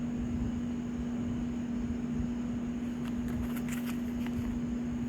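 Steady low room hum with one pitched tone held throughout, like a fan or air conditioner running. A few faint light clicks come about three to four and a half seconds in.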